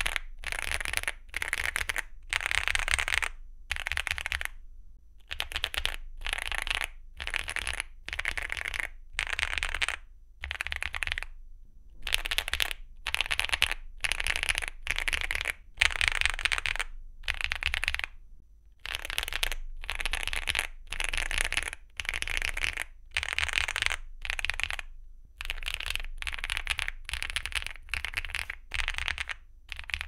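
Typing on a Weikav Lucky65 mechanical keyboard with a PC plate, full foam and PBT keycaps, fitted in turn with Gateron Beer, Gateron Mini i and Duhuk Bitter Tea V2 tactile switches. The key presses come in quick bursts of about a second each, with brief pauses between.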